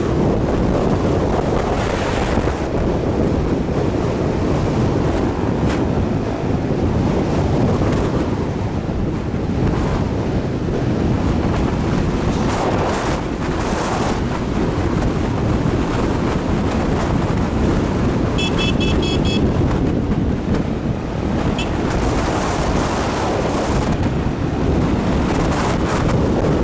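Heavy wind rush buffeting the microphone over road and traffic noise from a moving vehicle, swelling and easing. About two-thirds through comes a brief run of rapid high beeps, with one more beep shortly after.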